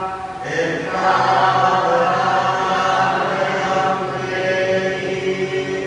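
Buddhist chanting: a steady recitation on long held tones, with a short break for breath just after it begins.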